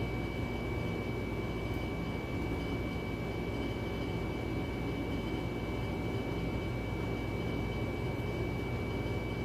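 Steady mechanical hum with a low drone and a thin, high-pitched whine, unchanging throughout.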